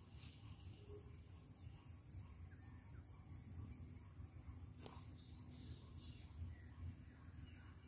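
Near silence: faint, steady high-pitched insect chirring over a low outdoor rumble, with two faint clicks, one near the start and one about five seconds in.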